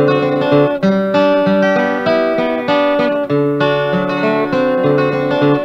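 Acoustic guitar playing an old-time instrumental passage: picked melody notes over a steady alternating bass line.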